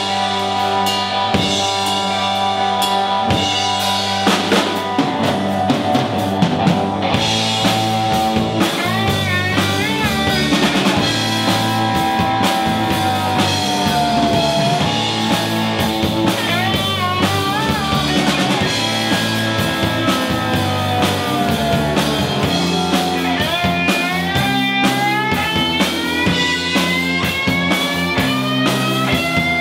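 Live rock band playing an instrumental passage: an electric guitar leads with bent, gliding notes over drums, bass guitar and keyboard.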